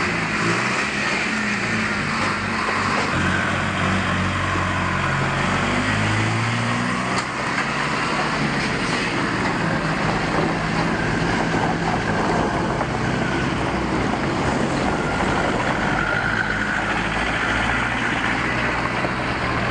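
A motor vehicle engine running close by amid steady traffic noise, its pitch shifting up and down in the first several seconds.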